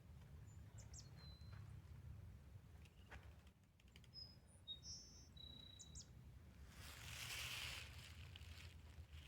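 Faint birds chirping: a few short, high calls about a second in and again around the middle, over a low steady rumble. Near the end comes a soft rustling hiss lasting about a second and a half.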